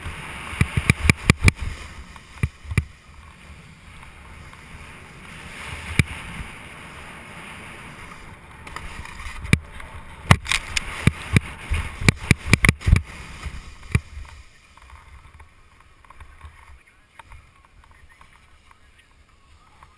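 Snowboard sliding and scraping over rough spring snow, a steady rushing noise broken by sharp clacks and knocks as the board chatters over bumps. It quietens after about 14 seconds as the ride slows and stops.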